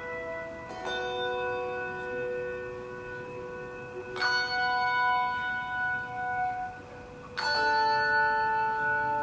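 Handbell choir ringing slow chords: three chords struck about three seconds apart, each ringing on with several clear, steady bell tones.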